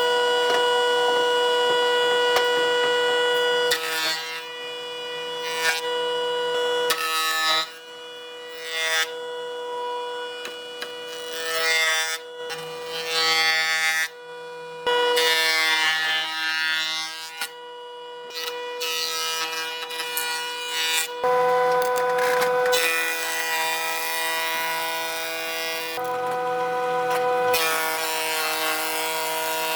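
High-speed power tools cutting and carving wood, a steady motor whine with grinding and rasping noise, heard in a series of short clips that cut abruptly every few seconds.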